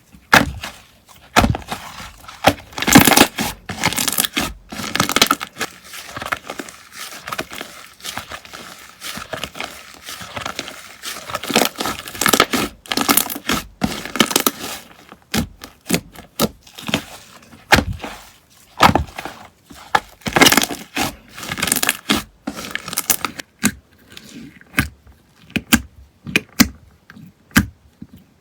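Slime being squeezed and poked by hand, giving a run of sharp crackling clicks and pops that thicken at times into dense crackle.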